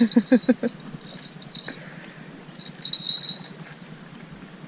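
A person's voice in a quick run of about five short syllables, like a brief laugh, then a faint high-pitched ringing or chirping that comes and goes.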